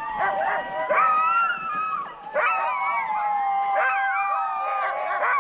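A pack of sled dogs howling together: many long, overlapping howls at different pitches, gliding up and down, with a brief lull about two seconds in.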